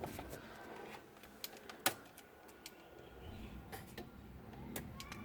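A few faint, scattered clicks and light knocks, with quiet between them.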